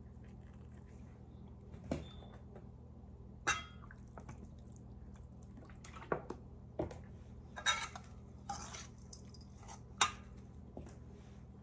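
Scattered clinks and knocks of a metal spoon against a stainless steel mixing bowl as minced meat salad is mixed, with a brief pour of liquid sauce into the bowl. The loudest clink comes about ten seconds in, as the spoon stirs the bowl.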